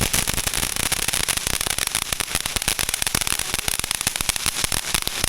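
Consumer firework crackling: a dense, irregular stream of rapid small pops.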